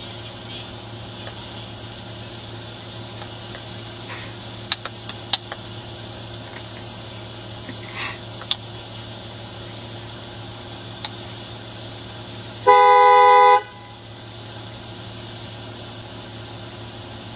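A car horn sounds one blast, about a second long, near the end, over a steady low hum. A few faint clicks come earlier.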